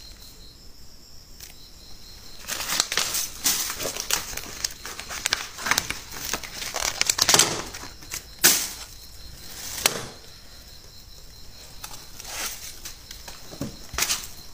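Rustling and crackling movement noise with a series of sharp clicks and knocks, busiest through the middle, as the handheld phone is moved about over a cluttered counter. A faint steady high insect trill runs underneath.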